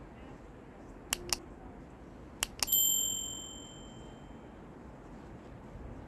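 Sound effects from a subscribe-button animation: two quick double mouse-clicks, then a bright notification-bell ding that rings out and fades over about a second and a half.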